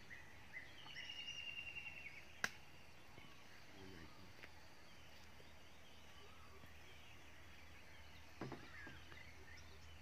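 Quiet outdoor ambience with a low steady hum, a brief rapid chirping trill about a second in, and a single sharp click about two and a half seconds in.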